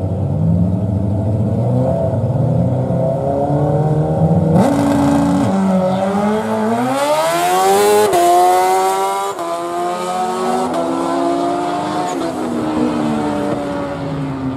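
A drag motorcycle and a car revving on the start line. About four and a half seconds in they launch and accelerate hard down the strip. The bike's engine climbs in pitch through several quick upshifts as it passes close by at its loudest, then fades into the distance.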